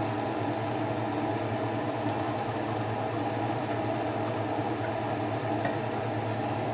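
Steady mechanical hum of a running kitchen appliance or fan, even in level throughout, with no distinct splash or gurgle standing out above it.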